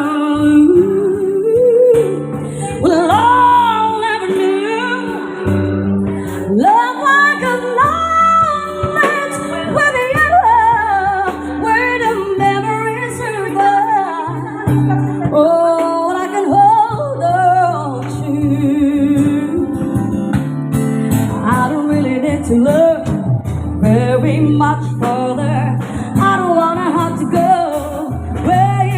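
A sung ballad over backing music with guitar and held bass notes; the voice glides through long melismatic runs without clear words.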